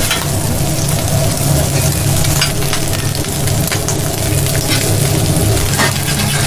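Cheese-topped beef burger patties sizzling steadily on a flat-top griddle over a low hum, with a few short clicks and scrapes of a metal spatula against the griddle.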